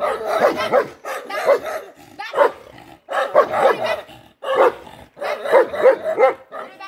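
Dogs barking in quick runs of several barks, with brief pauses between the runs.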